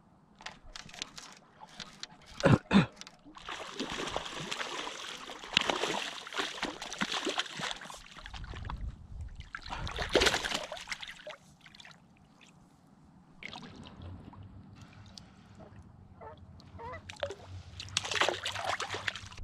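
Water splashing and sloshing in several bursts, with two sharp knocks about two and a half seconds in.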